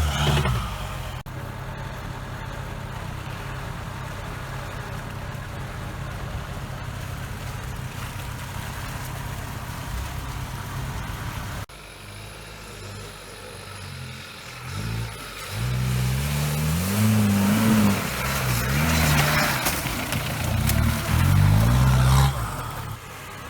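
Off-road 4x4 engine running at a steady pitch, then, after a sudden change partway through, revving up and down repeatedly under load as the vehicle works through mud.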